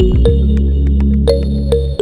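Electronic background music: a sustained synthesizer bass under bright, plucked, bell-like notes in a regular rhythm.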